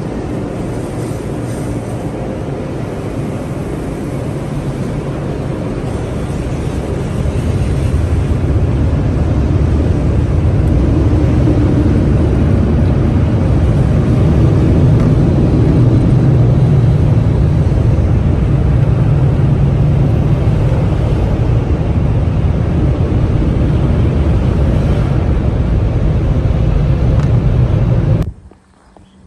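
Steady rumble of a moving car, growing louder about eight seconds in and cut off abruptly near the end.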